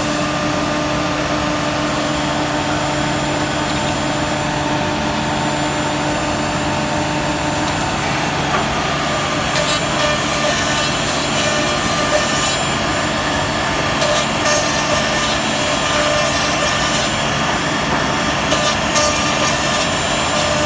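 CNC router cutting louver grooves into a cabinet door: a steady spindle whine under the noise of the bit cutting. About eight seconds in the pitch of the whine shifts, and in the second half there are a few short stretches of louder cutting noise.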